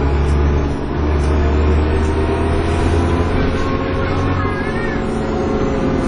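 Dennis Trident 2 double-decker bus engine heard from inside the passenger saloon, pulling under load with a deep steady drone. It eases briefly about a second in, then drops back in the second half before picking up again near the end.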